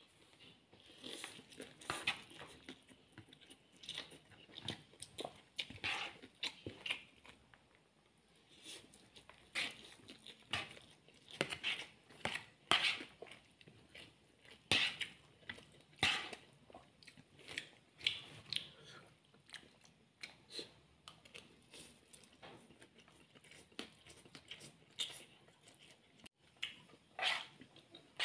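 Close-up eating sounds of fried instant noodles being slurped and chewed, coming in irregular short bursts, with a fork now and then against the plate.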